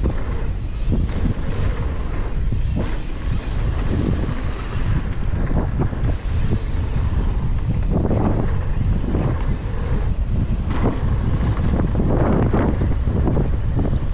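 Wind buffeting a mountain bike action camera's microphone at riding speed down a dirt trail, with steady tyre rumble and frequent knocks and rattles from the bike over bumps.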